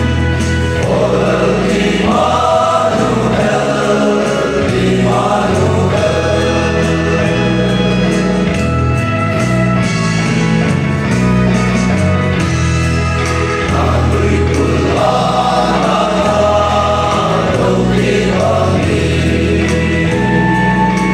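Male voice choir singing a gospel song in harmony, the notes held and changing every second or two without a break.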